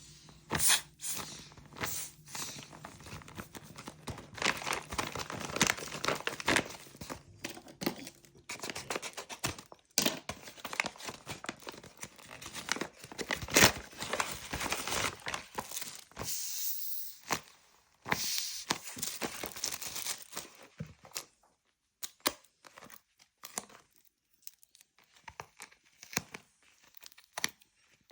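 Packaging being torn open and crinkled by hand, in irregular rustling bursts with sharp crackles. About two-thirds of the way through it thins out to scattered crackles and clicks.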